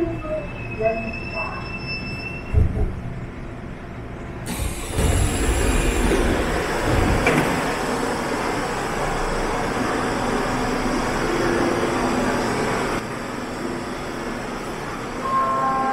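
Subway train running in a station: a steady rushing rumble of wheels on rail, which gets louder and brighter suddenly about four seconds in. A few clear steady tones sound near the end.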